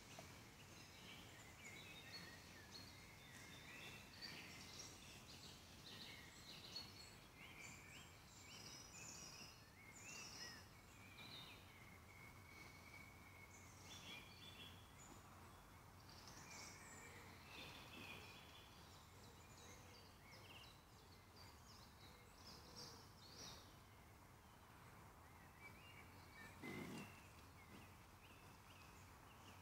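Faint woodland birdsong: many short chirps and trills from several birds over a low background hiss, with one brief lower sound near the end.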